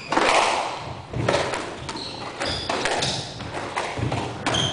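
Squash rally: the ball struck by rackets and hitting the walls, a sharp knock about once a second, with short high squeaks of shoes on the wooden court floor.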